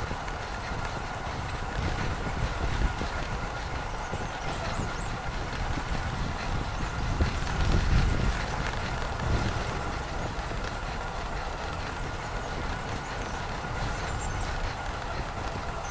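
Riding on an Eskute Voyager e-bike: wind rushing over the microphone and road noise, with a steady thin whine and a low rumble that swells for a couple of seconds about halfway through.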